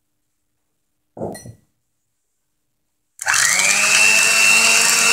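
A short knock about a second in, then an electric hand mixer switched on about three seconds in: its motor spins up and settles into a steady high whine as the beaters whip egg yolks with sugar.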